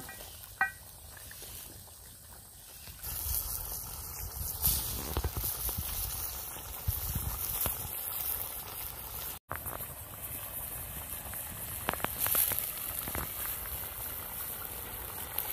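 Curry bubbling in a clay pot over an open wood fire, with the fire crackling and hissing; a short knock of a bamboo spoon against the pot near the start.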